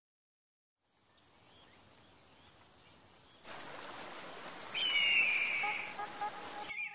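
Outdoor ambience with a bird calling: a faint hiss, then one drawn-out whistled bird call about five seconds in.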